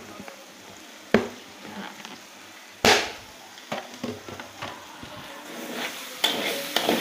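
Spice paste sizzling softly in a wok, broken by a few sharp knocks, the loudest about three seconds in. Near the end the sizzling grows louder as the spatula starts stirring the paste.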